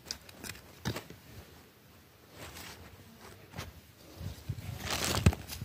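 Scattered light taps, crunches and scrapes of fingers and a small sickle-shaped hand hoe working dry, crumbly soil as groundnut seeds are poked in and covered, with a longer, louder scrape near the end.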